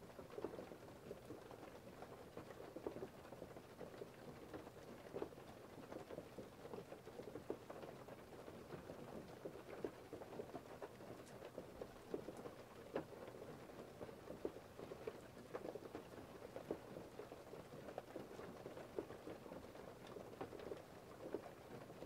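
Faint, steady patter of precipitation falling on a surface: many scattered, irregular taps over a soft continuous hiss.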